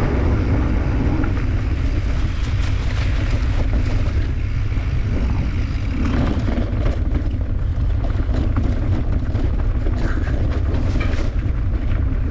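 Wind buffeting the microphone and tyre rumble from a bicycle rolling over gravel and dirt trail, a steady low noise. From about six seconds in, scattered ticks and rattles come in as the bike rides onto rougher singletrack.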